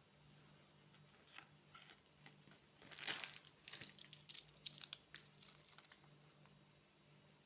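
Plastic candy wrapper crinkling and tearing, a few seconds of crackly rustling in the middle, over a faint steady low hum.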